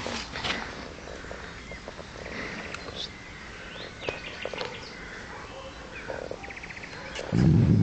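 Birds chirping and trilling in the trees, with rustling and collar clicks from handling the dog. Near the end, the young Great Dane lets out a loud, deep vocalisation.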